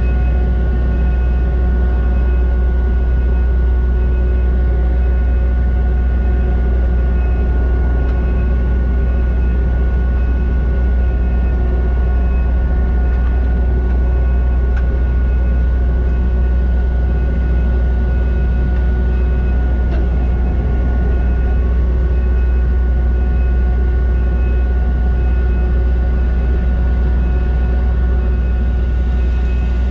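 Kubota SVL90-2 skid steer's diesel engine running steadily while working a Harley power rake, a constant low hum with an unchanging engine note.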